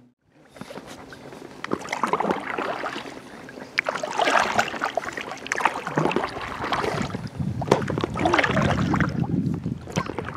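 Kayak paddle strokes splashing in the water, a swell of splashing about every two seconds, with a few sharp knocks between them.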